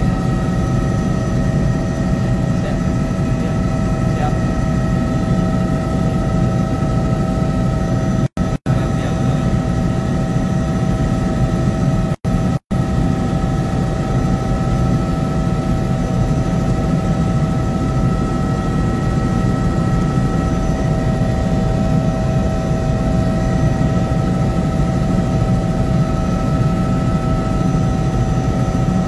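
Helicopter cabin noise in flight: a steady low rumble from the rotor and engine with several steady whining tones held over it. The sound cuts out twice very briefly, about eight and a half and twelve and a half seconds in.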